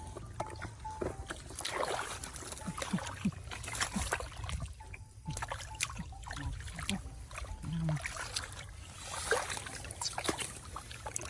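Shallow water trickling and sloshing, with irregular small splashes over a low steady rumble.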